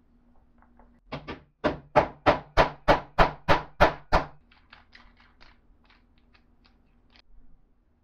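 Hammer blows driving a steel tee nut into a wooden knob: about ten sharp knocks at roughly three a second, followed by a scatter of lighter taps.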